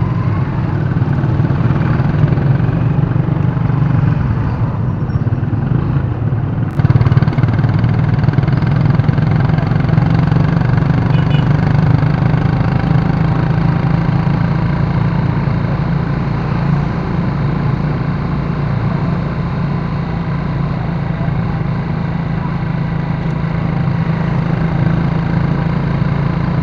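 Small engine running steadily under load as the vehicle carrying the camera rides along, with other motorcycles and cars passing close by. A sharp knock sounds about seven seconds in.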